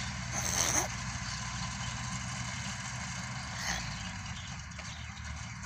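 Combine harvester and tractor engines running steadily while the combine's auger unloads grain into the trailer. A brief sharper sound about half a second in, and another shorter one near the middle.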